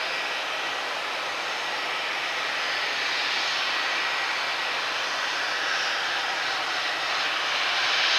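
Bombardier Global 6500's twin rear-mounted Rolls-Royce Pearl 15 turbofans at taxi power: a steady jet rush with a thin high whine, growing a little louder near the end.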